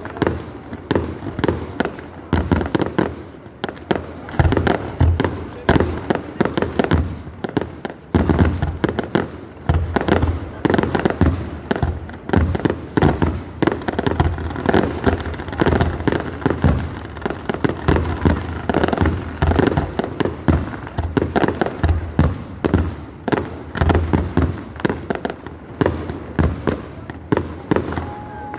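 Fireworks display: aerial shells bursting in quick succession, a dense run of bangs with deep booms, several a second, without a break.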